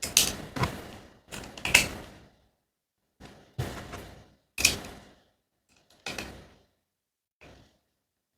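Hard plastic and metal parts of a small blender clicking and knocking together as they are handled and refitted, about eight separate sharp knocks with short gaps between.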